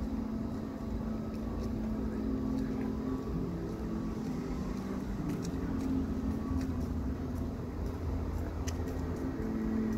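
Steady city background: low traffic rumble with a constant low hum and a few faint ticks.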